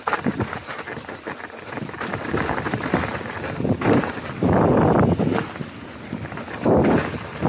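Mountain bike rattling and clattering over a rough dirt and rock trail, with wind rushing over the camera microphone. Two louder rushes of noise come about halfway through and near the end.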